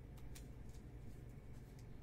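Faint clicks and rustles of baseball cards in plastic sleeves and toploaders being handled and shuffled, a few light ticks scattered over a low steady hum.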